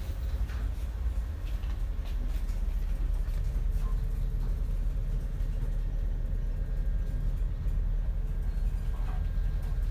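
Steady low rumble on board a ship at sea, with a faint steady hum and a few light clicks.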